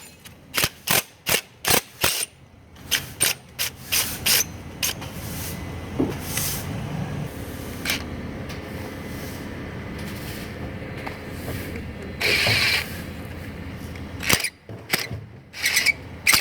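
Socket ratchet clicking stroke by stroke while loosening a bolt, a few clicks a second. It goes quieter for a while, then the clicks return near the end.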